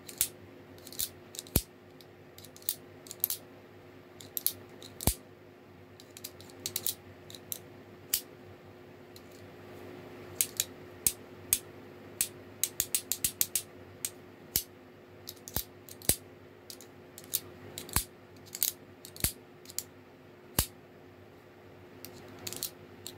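Demko AD20.5 folding knife's Shark Lock clicking as the blade is worked open and closed over and over: many sharp metallic clicks at uneven intervals, with a quick run of them about halfway through.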